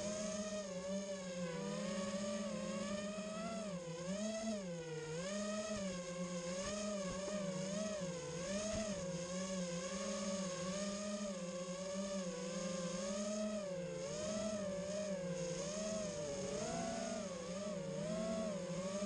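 FPV racing quadcopter's motors and propellers whining in flight, the pitch rising and falling constantly as the throttle changes.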